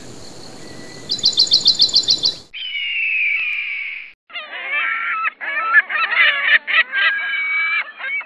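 A string of animal calls joined by abrupt cuts: a bird's rapid high trill of about ten notes, then a harsh falling call, then a run of choppy, honking fowl calls.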